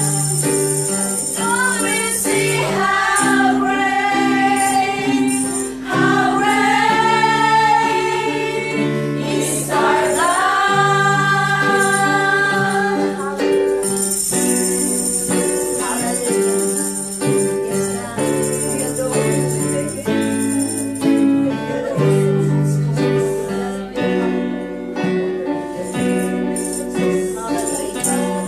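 Christian praise and worship song: a woman's voice singing through a microphone over sustained backing chords, with a tambourine's jingles shaking along at the start and again about halfway through.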